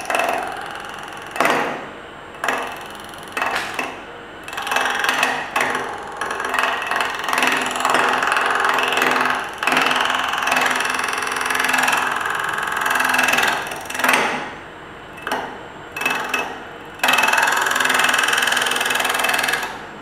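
Wood lathe running steadily while a turning tool cuts into a small spinning wooden disc, in several stop-start cuts of a few seconds each, the longest near the middle and near the end.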